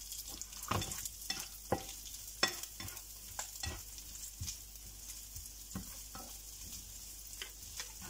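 Shredded chicken and vegetables sizzling in oil in a frying pan while a spatula stirs them, with irregular clicks and scrapes of the spatula on the pan; the sharpest knock comes about two and a half seconds in.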